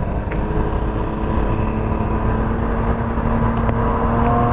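Stock-exhaust 2021 Can-Am Ryker Rally, its Rotax 900 ACE three-cylinder engine running steadily as the trike approaches on a flyby, growing louder throughout.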